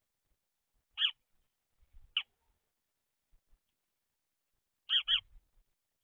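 Male house sparrow chirping: four short chirps, one about a second in, another about a second later, and a quick pair near the end.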